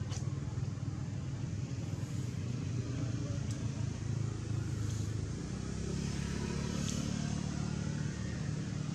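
Low, steady hum of a motor vehicle engine running, stepping up a little in pitch about halfway through.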